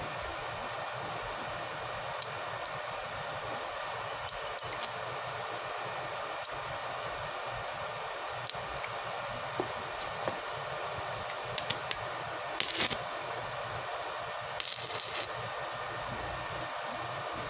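Electric arc welding on steel pipe and rebar: a steady crackling hiss with scattered sharp pops, and two louder bursts of crackle about 13 and 15 seconds in.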